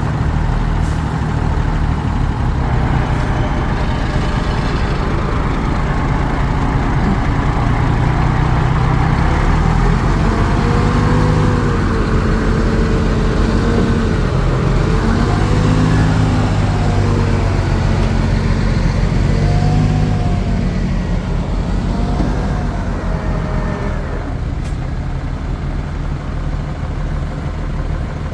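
Heavy diesel earthmoving machinery running under load, its engine note rising and falling. A wavering whine rides over it from about ten seconds in to just past twenty seconds, and then the sound eases off.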